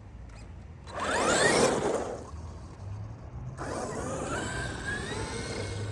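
Traxxas XRT RC monster truck driving off on dirt: a loud burst of motor whine and tyre noise about a second in, then the brushless motor whining with a pitch that climbs as it picks up speed from about three and a half seconds in.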